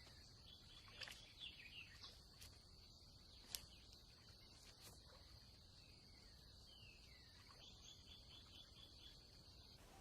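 Faint wetland ambience: a steady high-pitched drone, with a few faint ticks and short falling chirps scattered through it.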